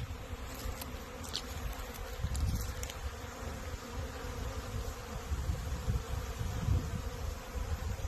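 Honeybees buzzing steadily around a hive entrance on a cleansing flight, over a low rumble. A few brief high chirps come in the first three seconds.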